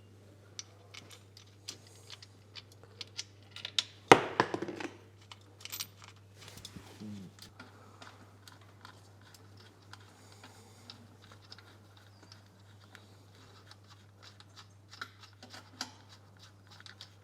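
Light clicks and clinks of metal engine parts being handled and set in place by hand during assembly, with one louder knock about four seconds in, over a steady low hum.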